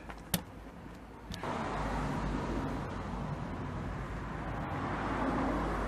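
A sharp click, then a second one about a second later, followed by a steady low rumble of vehicle noise.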